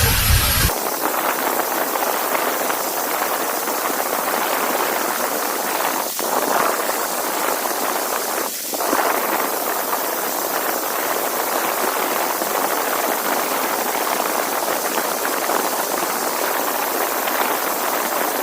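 Dyson cordless stick vacuum running steadily on a third-party battery during a run-time test, a loud, even rush of air with two brief dips, near six and nine seconds.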